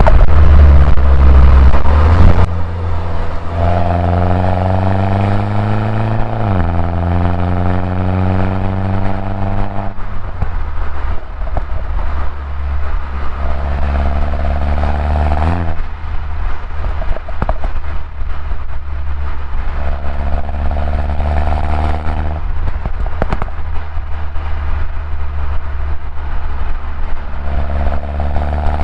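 A 2011 Mini Cooper S R56 with its stock exhaust, its turbocharged 1.6-litre four-cylinder engine pulling while driving. The engine note climbs in pitch under acceleration, then drops suddenly at each gear change, about four times. It opens with a loud low rumble for the first two seconds.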